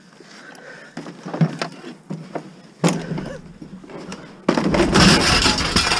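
A piece of scrap being forced into a loaded pile of scrap on a truck: a few knocks about a second in, a hard clunk near three seconds, then a loud stretch of scraping and rattling from about four and a half seconds on as it slides into place.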